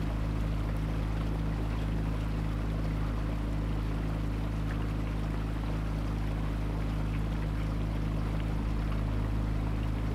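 A boat's engine running steadily underway, a constant low hum, with the rush of water along the hull.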